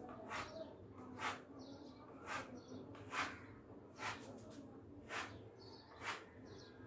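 Spatula tool dragged in short strokes through wet textured wall paint: seven faint scrapes, about one a second.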